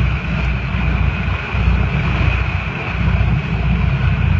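Boat's engine running steadily, a continuous low rumble, with wind on the microphone.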